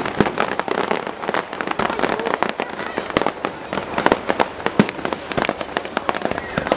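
Aerial firework shells bursting in a dense, irregular run of bangs, several a second.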